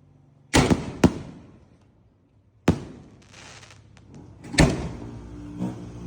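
Bombshell firework going off: a series of sharp bangs, two close together about half a second in, another near the middle and one more late, with a short hissing trail after some of them.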